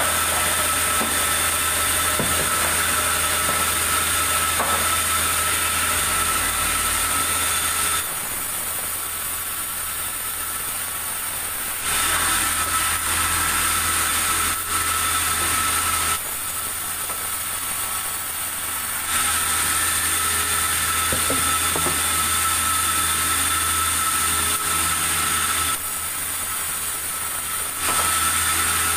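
Band sawmill running, its motor humming steadily. A high-pitched whine and hiss come in while the blade cuts through wood, in four spells of several seconds each, with quieter stretches of the machine running alone in between.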